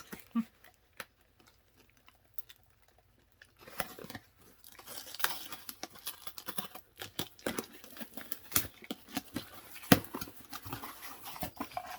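Paper wrapping and packaging of a gift being handled and torn open, a dense run of crackles and sharp clicks that starts about three and a half seconds in after a nearly quiet start.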